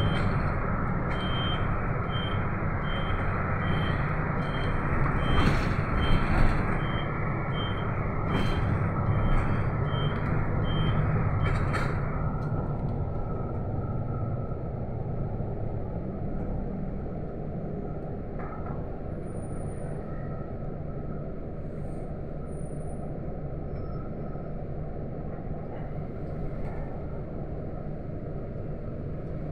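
City bus engine and road noise heard from inside the bus. For the first ten seconds or so a high beeper sounds about twice a second, like the bus's turn-signal warning, with a few short sharp sounds among it. After that the running noise gets a little quieter as the bus slows in traffic.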